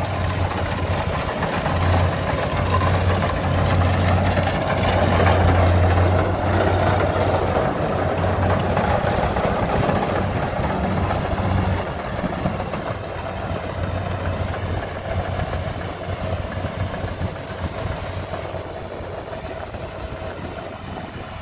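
Kubota rice combine harvester's diesel engine and threshing gear running steadily while it harvests. It is loudest as it passes close in the first few seconds, then fades as it moves off.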